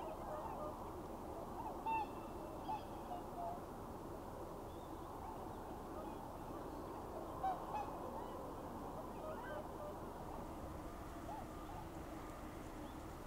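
A flock of swans calling: a steady chorus of many distant honking calls, with a few louder, clear single calls about two, three and seven and a half seconds in.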